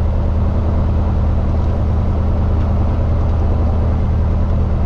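Robin DR400's four-cylinder piston engine and propeller running steadily while the aircraft taxis, heard from inside the cockpit.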